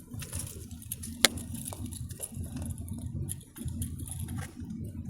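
Steady low road rumble inside a moving car's cabin, with light clicks of a 3D printed plastic dragon being handled and one sharp click about a second in.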